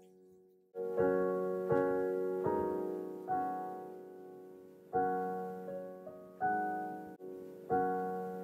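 Background piano music: slow chords struck about once a second, each ringing on and fading, beginning about a second in after a short lull.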